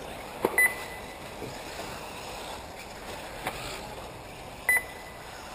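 Two short, high electronic beeps, one near the start and one near the end, over a steady background hiss. The beeps are typical of an RC race's lap-timing system registering buggies crossing the line.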